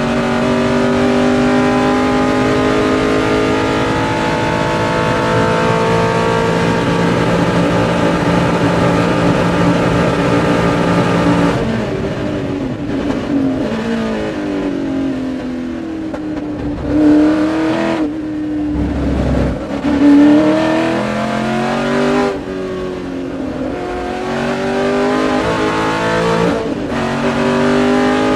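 Ford GT40's V8 engine heard from inside the cockpit at racing speed. The revs are held high and steady for about eleven seconds, then fall away suddenly and rise and fall for several seconds. Near the end the engine pulls hard again, climbing in steps.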